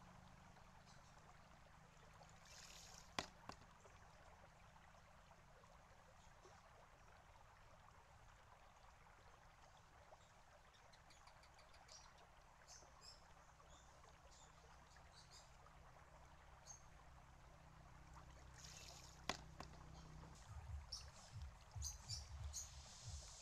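Bamboo shishi-odoshi tipping twice, about sixteen seconds apart. Each time there is a short rush of water pouring out, then a sharp knock as the bamboo tube falls back against the rock. Under it a faint steady trickle runs into the tube, and low uneven rumbling comes in near the end.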